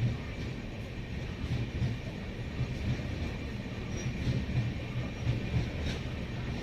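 Passing train running over the track: a steady rumble with a regular low beat from the wheels.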